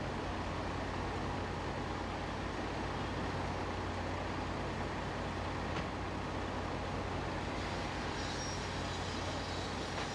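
Fire apparatus diesel engines running steadily at a working fire, a constant drone with a low hum underneath.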